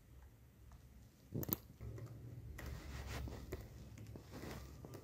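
Light, scattered keystrokes and clicks on a computer keyboard, the loudest a quick pair of clicks about a second and a half in, over a faint low hum.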